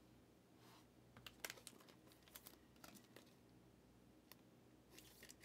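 Faint scattered clicks and light rustles of chromium trading cards being handled and shuffled in the hands, with a cluster about a second and a half in and more near the end.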